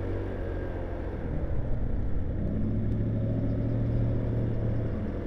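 150cc scooter's engine running under way, with road noise; it grows a little louder about two seconds in as the scooter picks up speed.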